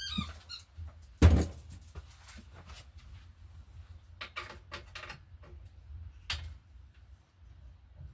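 Tools and bike parts being handled during a bicycle strip-down: a short squeak, then a loud knock about a second in, followed by scattered lighter clicks and taps.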